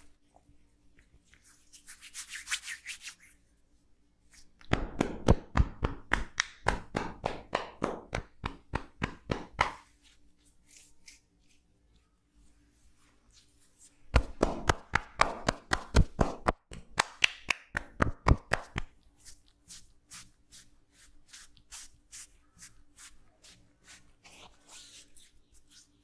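Hands slapping and tapping quickly on a person's arm in a percussive massage, in two runs of several seconds each. There is a short rub of hands on skin before them and lighter pats after.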